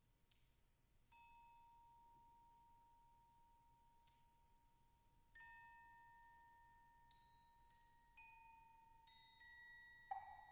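Crotales struck one at a time with mallets, about nine strikes with each bell-like tone left to ring on. The pitches cluster around B natural and shift slightly from strike to strike. A louder, lower-ringing strike comes near the end.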